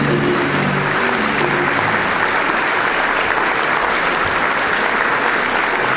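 Audience applauding at the end of an acrobatic act, as the accompanying music stops about a second in.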